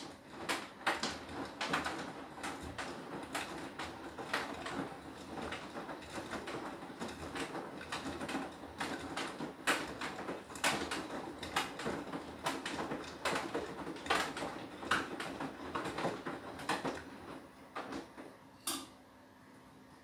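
Beko WTK104121W washing machine drum tumbling the wash load, an uneven run of swishes and thumps. It stops about a second before the end.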